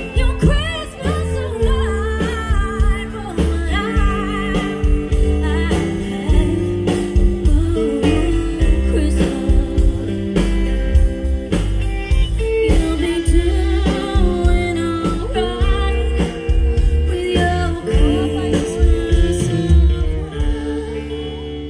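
Live band playing amplified music: a singing voice over electric guitar, bass and drums with a steady beat.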